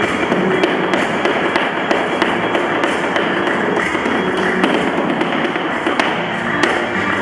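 Flamenco dance footwork: heel and toe strikes of flamenco shoes tapping sharply on the floor several times a second in an uneven rhythm, over flamenco music.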